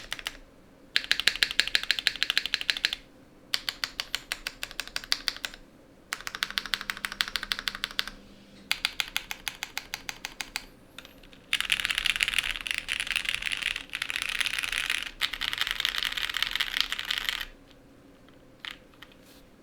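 Matrix 1.2 OG mechanical keyboard with lubed Cherry MX Black linear switches in an aluminium plate and Cherry G80 keycaps being typed on. It starts with short runs of rapid, evenly spaced keystrokes with brief pauses between them, then about six seconds of faster, denser typing, and ends with a couple of single key presses.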